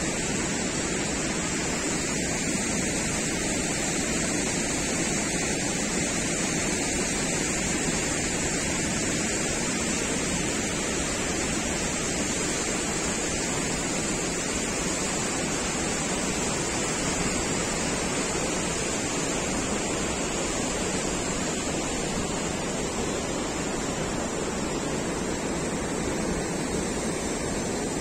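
Fast mountain river rushing over rocks, a steady, unbroken white-water noise.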